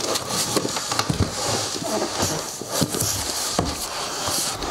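Cardboard boxes scraping, rustling and bumping against each other as a long carton is pulled up out of a larger shipping box, a busy run of knocks and scrapes.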